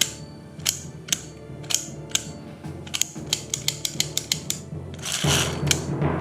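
Plastic toy guns clicking and rattling as they are handled, with irregular sharp clicks that come faster in the middle, over background music. A louder rattle starts near the end.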